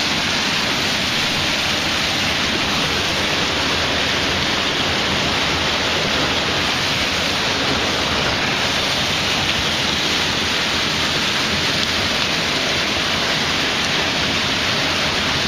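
A fast mountain stream rushing white over boulders, a dense, steady water noise with no let-up.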